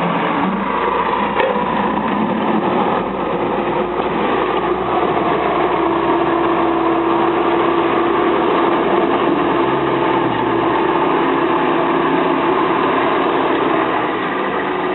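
Diesel engines of snow-clearing machinery, a plow truck and a front loader, running steadily while they move and pile snow, with a held engine note through the middle.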